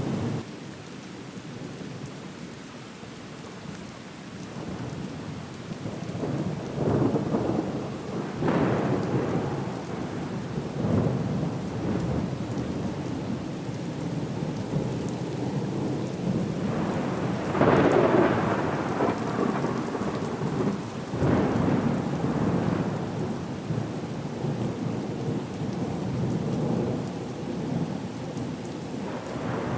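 Storm-at-sea ambience: a steady wash of rain with repeated rolling, rumbling surges, the strongest about eighteen seconds in.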